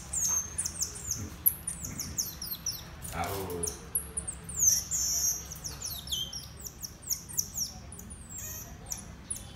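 Small pet monkeys calling: a rapid run of short, very high-pitched chirps and falling whistles, several a second.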